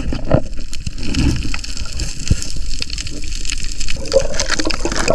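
Water sloshing and gurgling close to the microphone as a diver swims, with scattered small clicks and knocks.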